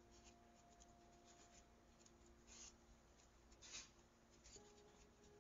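Faint rustling and crinkling of a sheet of paper handled and folded by hand, with two crisper rustles about two and a half and nearly four seconds in, over soft sustained music notes.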